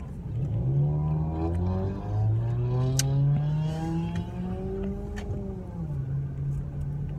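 Car engine accelerating, its pitch rising steadily for about five seconds and then dropping away, with a couple of sharp clicks along the way.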